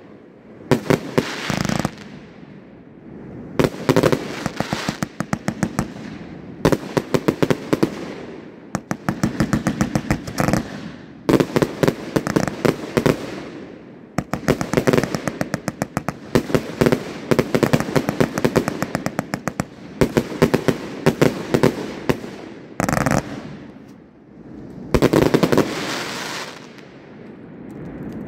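A 227-shot 500-gram consumer firework cake firing in rapid volleys of sharp reports, one volley every couple of seconds, each trailed by a rushing haze of bursting stars. A last loud volley comes near the end.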